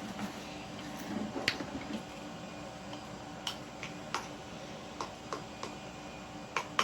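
Light irregular clicks and taps from a spatula stirring slime in a container, over a steady low hum.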